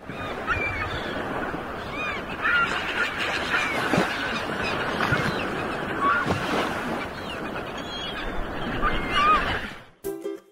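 Sea surf with birds calling over it, many short calls that bend up and down in pitch; the sound cuts off abruptly near the end.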